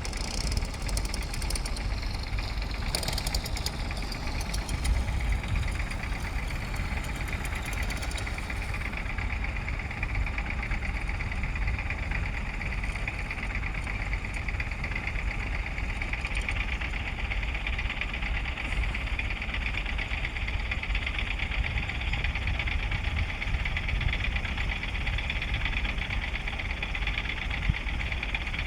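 Diesel engine of heavy earthmoving machinery running steadily under work. A higher whine grows stronger about halfway through.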